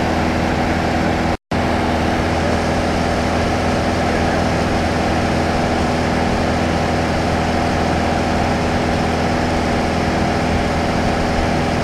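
Steady drone of a light touring aircraft's piston engine and propeller in cruise, heard inside the cabin. It is broken once by a split-second dropout about one and a half seconds in.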